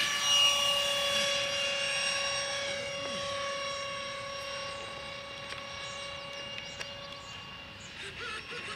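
Radio-controlled model airplane's motor and propeller running at full power, a steady high-pitched drone that is loudest as the plane passes low after takeoff, then fades steadily as it climbs away.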